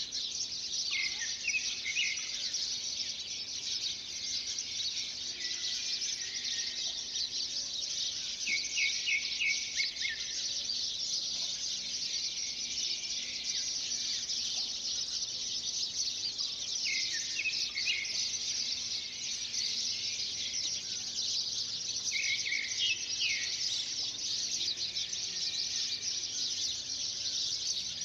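Birds chirping in short repeated phrases, coming back every several seconds, over a steady high-pitched insect chorus.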